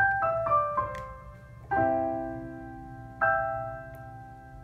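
Electronic keyboard played with a piano sound: four quick single notes stepping downward, then a chord struck after about a second and a half and left to ring, and a second chord about a second and a half later.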